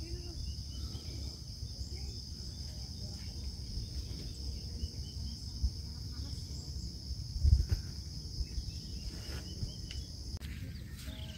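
Steady high-pitched drone of an insect chorus, over a low rumble of wind on the microphone, with a brief bump about seven and a half seconds in. The insect drone stops about ten seconds in.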